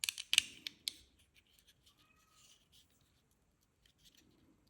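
Small 3D-printed plastic headphone parts being handled and fitted together: a quick run of sharp plastic clicks and taps in the first second, then faint scattered ticks.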